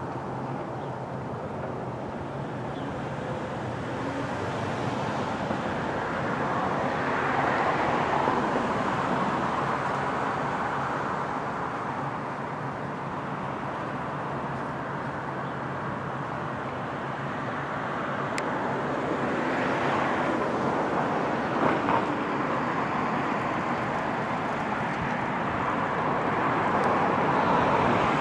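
Street traffic: vehicles passing one after another, the sound swelling and fading several times.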